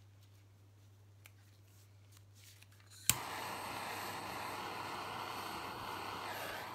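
A handheld electric blower clicks on about three seconds in and runs with a steady rush of air.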